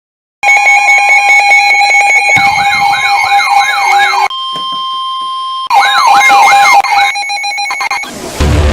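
Electronic alarm and siren tones: a cluster of steady tones, then a siren sweeping rapidly up and down about three times a second, a quieter single steady tone, another burst of the fast sweeps, and a stretch of pulsing tones. Music cuts in near the end.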